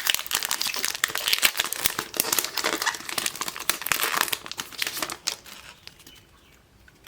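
Plastic trading-card pack wrapper being crinkled and torn open: a dense crackling with sharp snaps for about five seconds, then dying down to quiet handling.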